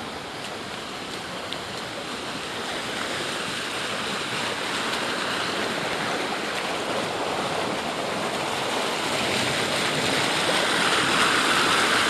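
Rushing floodwater, growing steadily louder and ending in a loud rush of water pouring at a 24-inch culvert too small for the heavy rain.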